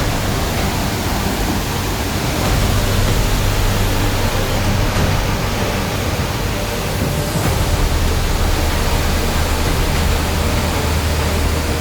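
Waterfall roaring close by: a loud, steady rush of falling water.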